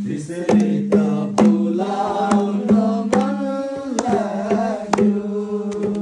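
Nepali folk-style song music with a quick hand-drum beat, struck about twice a second, and a melody over a steady held low note.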